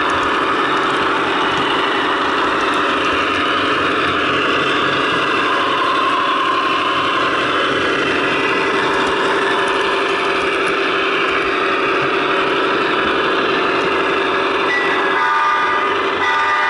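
Sound system of Broadway Limited Imports HO-scale GE AC6000CW model locomotives playing the steady running of sixteen-cylinder turbo diesels, with a horn sounding about fifteen seconds in.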